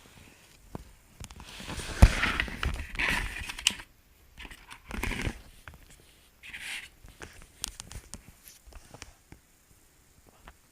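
Handling noise: irregular rustling and knocks, with a sharp knock about two seconds in followed by a stretch of rustling, then a few shorter rustles.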